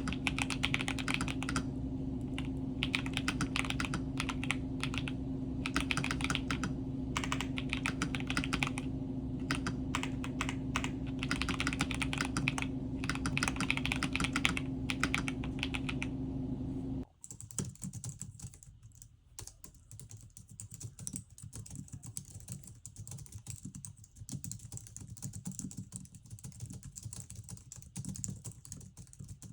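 Mechanical keyboard being typed on: rapid keystroke clicks in bursts with short pauses. A steady low hum under the typing cuts off abruptly a little past halfway, and the keystrokes carry on quieter after that.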